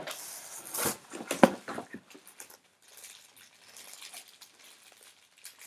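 Rummaging in a cardboard box and handling an accessory in a plastic bag: rustling and crinkling, with two sharp knocks in the first second and a half, then fainter crinkles.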